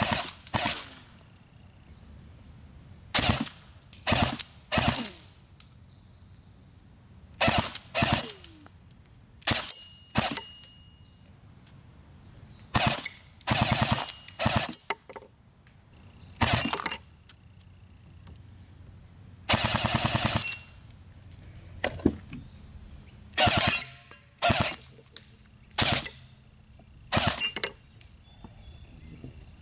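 Barra 400E battery-powered full-auto BB rifle firing .177 steel BBs in short bursts, about twenty in all, each a rapid string of shots lasting under a second. Several bursts carry high metallic pings of BBs striking metal targets.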